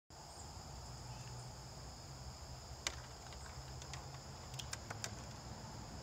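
Steady chirring of crickets, with a few sharp clicks: one about three seconds in and a small cluster near the end.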